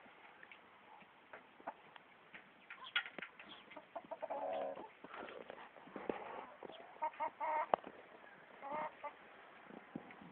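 Chickens calling in short bursts, the longest call about four seconds in and a cluster of calls around seven to nine seconds in, with many sharp clicks scattered between them.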